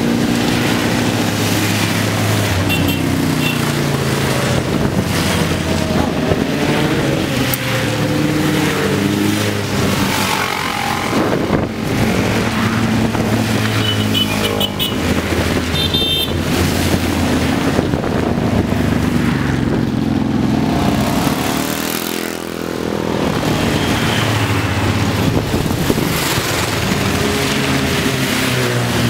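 A procession of motorcycles riding past one after another, engines rising and falling in pitch as each goes by, over a steady hiss of tyres on a wet road.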